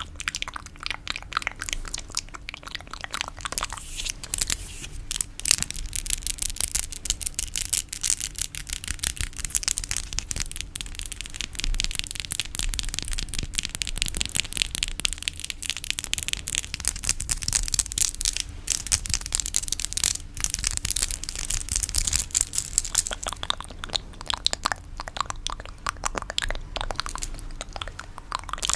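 ASMR fingernail tapping and scratching: a dense, fast crackle of small clicks, mostly high-pitched, that never lets up.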